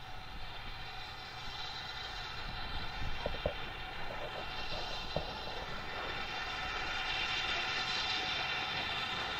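Steam tank locomotive hauling coaches as it approaches, a steady running sound growing louder, with a few light clicks about three to five seconds in.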